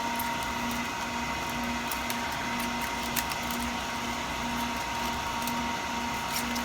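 Steady hum of machinery running in a lab room: a continuous high tone over a low tone that pulses on and off about twice a second, with a few faint clicks.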